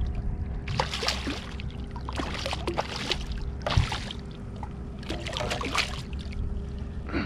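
Hooked redfish thrashing at the surface beside the boat as it is pulled in on the line, splashing in several separate bursts. A steady low hum runs underneath.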